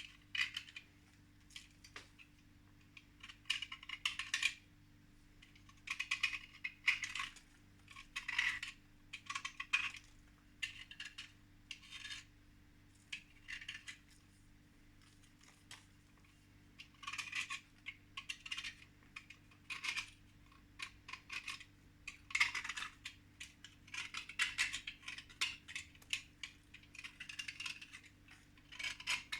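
Irregular bursts of rapid clicking, clinking and scraping of small hard objects being handled, a cluster every second or two with short pauses between, over a faint steady low hum.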